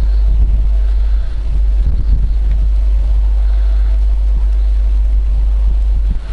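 Wind buffeting the microphone: a steady, loud low rumble with an even hiss above it.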